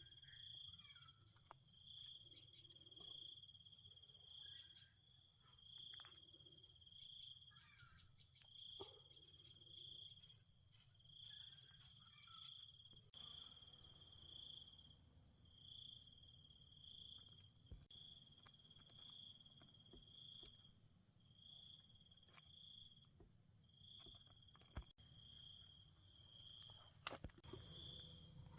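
Insects chirping faintly: a steady high trill with a second high chirp pulsing about once a second, over a low hum and a few small clicks.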